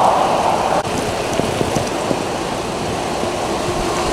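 Steady heavy rain mixed with the spray hiss of car tyres on a wet highway; the sound dips briefly about a second in, then goes on a little quieter.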